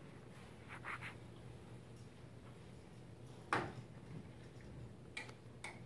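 Quiet room tone with a low steady hum, a single sharp knock about three and a half seconds in, and a few faint clicks near the end.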